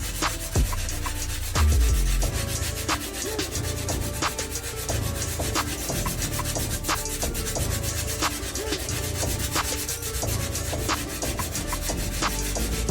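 Sandpaper rubbing over hardened Bondo body-filler putty in a patched bathtub chip: a steady run of fast, scratchy strokes as the filler is sanded smooth and feathered into the surrounding tub surface.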